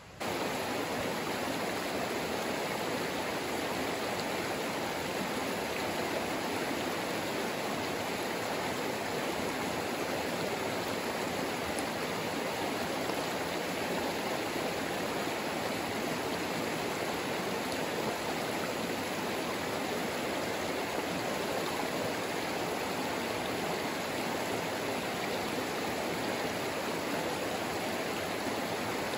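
A stream of running water, a steady unbroken flowing noise that starts abruptly.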